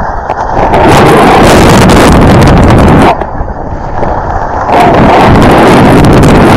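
Loud wind noise buffeting the microphone of a camera worn by a skier moving downhill. It eases for about a second and a half partway through, then comes back as strong.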